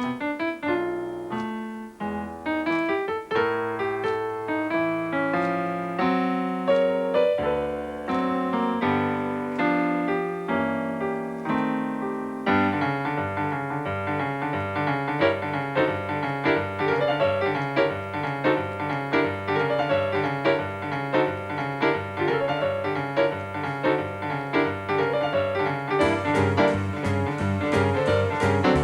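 Solo piano playing boogie-woogie blues: slow, bluesy chords at first, then about twelve seconds in a steady rolling boogie bass line starts repeating in the left hand under the right-hand figures.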